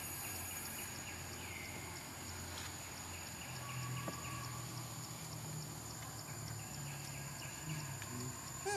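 Forest insects keep up a steady high-pitched buzz with rhythmic chirping, about three pulses a second. A faint low hum joins about three and a half seconds in.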